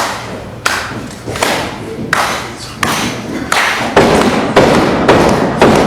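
A run of about nine heavy thuds on a wrestling ring, one roughly every two-thirds of a second, each echoing briefly. They come quicker and louder from about four seconds in.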